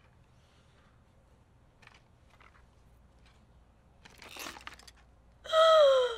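Faint handling clicks and a short plastic rustle about four seconds in as a DVD case is handled and opened, then near the end a loud, high-pitched woman's whimper that falls in pitch: dismay at finding the disc inside cracked.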